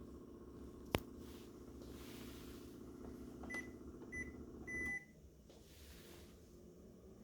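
Panasonic F-VXS70 humidifying air purifier running with a steady hum, the abnormal noise it makes in humidifying mode. A sharp click about a second in; then two short beeps and a longer one from the unit, and the hum stops as the last beep ends.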